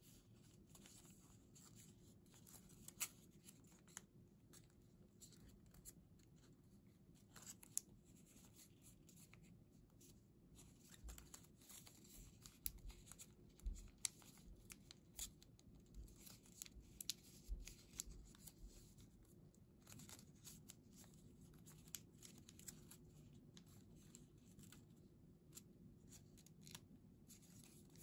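Faint crinkling and creasing of thin origami paper being folded and pinched into shape by fingers, with scattered sharp little paper crackles that come thickest around the middle, over a low steady hum.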